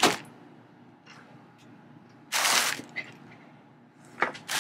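Handling noise from craft supplies: a sharp click at the start, then a brief noisy rustle about two and a half seconds in, with a few light ticks and more rustling near the end.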